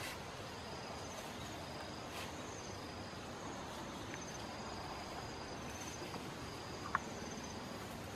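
Insects trilling: short, high, repeated trills over a steady outdoor hiss. Brief rustles of leaves and undergrowth come near the start and around two seconds in, and a single sharp tick comes about seven seconds in.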